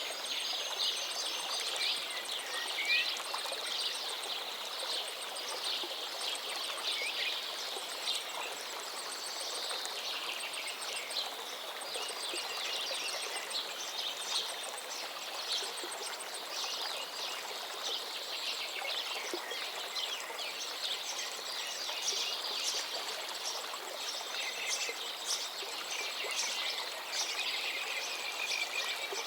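A dense chorus of songbirds singing and chirping over the steady rush of a flowing forest river.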